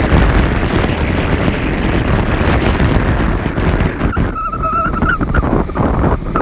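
Strong sea wind buffeting the microphone, with surf rolling beneath it. About four seconds in, a brief, high wavering call cuts through for about a second.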